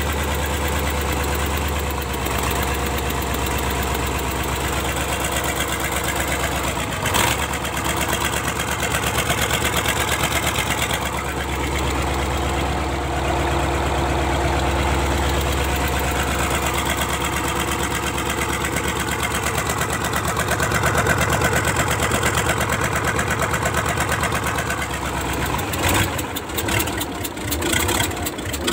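YaMZ-238 V8 diesel engine, out of its vehicle, idling with a dense, even beat of firing pulses. There is a single sharp knock about seven seconds in, and the engine runs a little louder for a few seconds past the middle.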